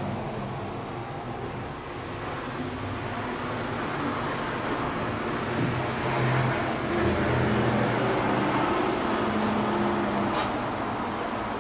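Steady motor-vehicle noise with a low hum that swells a little midway, and a brief sharp click near the end.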